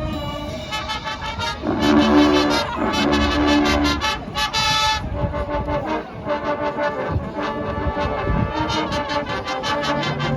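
High school marching band playing, brass holding loud sustained chords that swell a couple of seconds in, ease off, then build again near the end.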